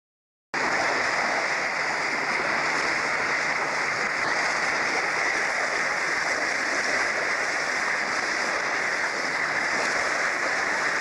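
Water spraying and streaming steadily, an even rushing that starts abruptly about half a second in.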